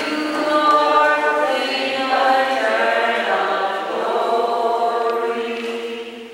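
Congregation singing a slow chant in unison with long held notes, the sung acclamation before the Gospel, fading out near the end.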